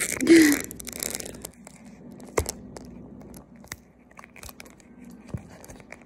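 Stuck Coach phone case being pried and peeled off a phone: a burst of scraping and crackling for about the first second and a half, then scattered clicks and taps.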